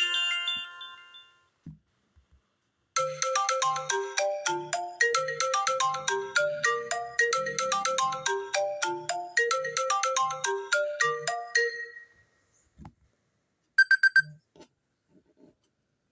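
Stock iPhone ringtone previews on an iPhone XR running iOS 16: a melodic, chiming ringtone plays a rhythmic phrase of quick notes over a steady pulse for about nine seconds. Near the end comes a short alert tone of four quick beeps.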